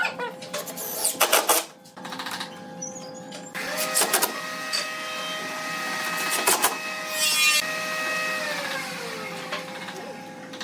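Cordless drill driving screws into pine: the motor whines in short runs with sharp clicks, then runs steadily through the middle and winds down near the end.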